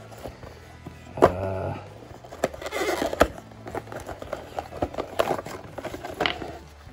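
A small cardboard box being handled: knocks and scrapes, rustling as its end flap is opened, and a plastic tray sliding out of the sleeve.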